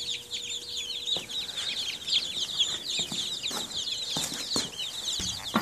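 A brooder of day-old chicks and turkey poults peeping: a dense, continuous chorus of short, high chirps, with a few soft knocks scattered through it.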